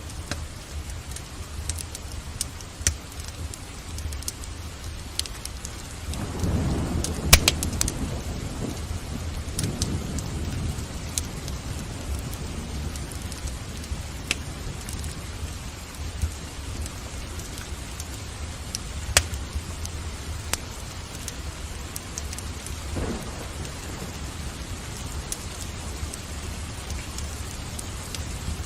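Steady rain with thunder: a long low roll starting about six seconds in and a shorter rumble later on, mixed with the sharp pops and snaps of a wood fire crackling in a fireplace.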